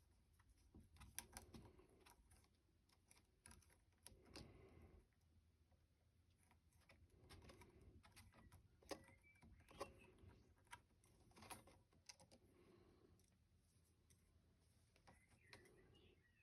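Near silence with faint, scattered clicks, small knocks and rustles of small parts being handled by hand.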